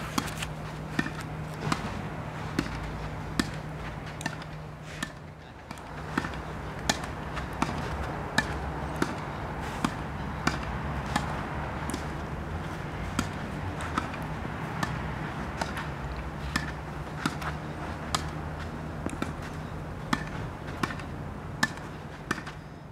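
Tennis ball struck by racket strings and bouncing on the court in a steady rally: a run of sharp pops, roughly one every second. A steady low hum runs underneath.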